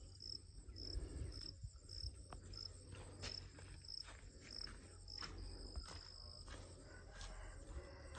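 A cricket chirping: short, high chirps at an even pitch, about two a second, with one longer trill a little past the middle. A low rumble and a few faint clicks lie underneath.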